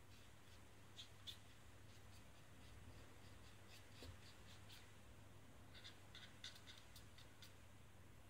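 Faint light clicks and scratches of small plastic mould parts and a thin wire being handled over a paper-towel-covered table: two about a second in, a scattered run between three and five seconds, and a denser cluster around six to seven seconds.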